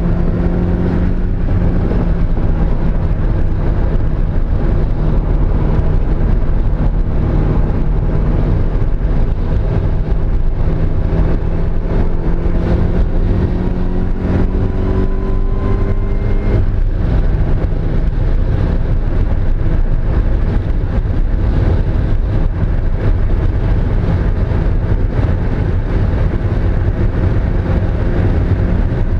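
Mazda Miata's four-cylinder engine running hard on a race track, heard from inside the car over road and wind noise. The engine pitch climbs steadily for a few seconds past the middle, then drops abruptly, as on a lift or gear change.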